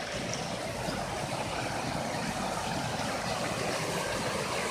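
Mountain stream rushing over a small concrete weir: a steady rush of water that grows slightly louder.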